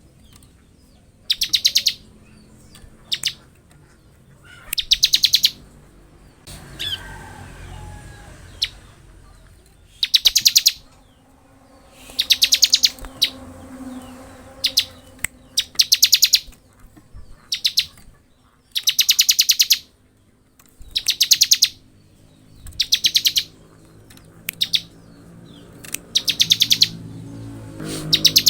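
Bar-winged prinia (ciblek) singing in the fast "ngebren" style: short, high bursts of rapidly repeated notes, each under a second long, coming again every couple of seconds.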